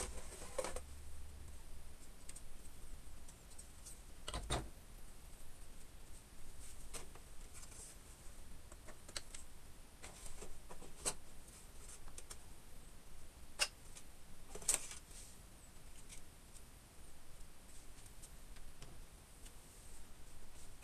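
Scattered light clicks and knocks of plastic and metal parts being handled and unclipped inside a Power Mac G5's aluminium case, a few sharper knocks among them.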